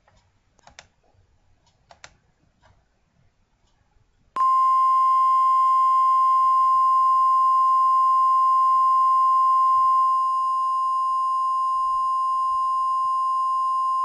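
Electronic alert tone of a mock Emergency Alert System broadcast: one steady, unbroken beep that starts abruptly about four seconds in, holds for about ten seconds, drops slightly in loudness near the end and cuts off sharply. A few faint clicks come before it.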